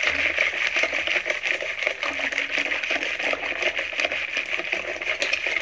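Mango pulp, milk and sugar being beaten by hand with a stick churner in a steel bowl, making a continuous quick splashing and sloshing with fast, irregular clicks.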